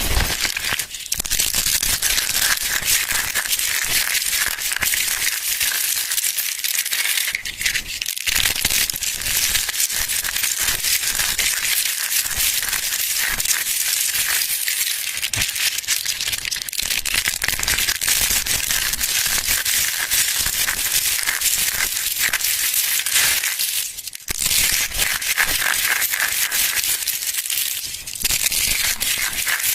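Crunchy soap-crushing sound effect: dense, continuous crackling and crunching, bright and sharp, with a brief break about 24 seconds in.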